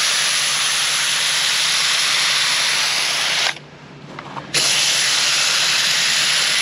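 IK Foam Pro 2+ hand-pump foam sprayer, dry pick-up tip fitted, spraying thick foam with a steady loud hiss. The spray stops for about a second around three and a half seconds in, then starts again.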